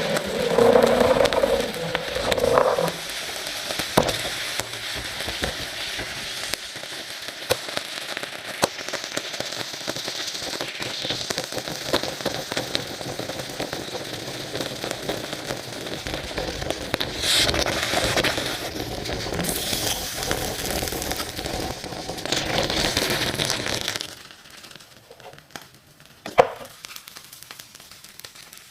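Burning fireball gel crackling and fizzing densely for about 24 seconds, then dying down to faint crackles, with one sharp pop near the end.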